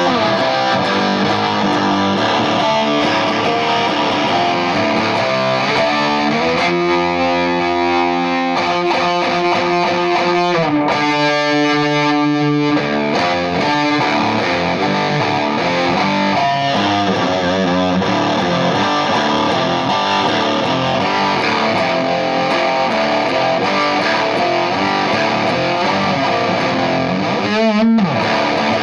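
Electric guitar played through a Volition Amps Vintage Fuzz pedal, a fuzz-distorted riff with two sustained chords midway and a sharp downward pitch slide near the end.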